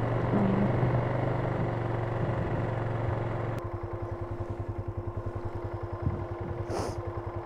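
Polaris Sportsman 570 ATV's single-cylinder engine running steadily under way, then about three and a half seconds in dropping to an evenly pulsing idle as the ATV comes to a stop.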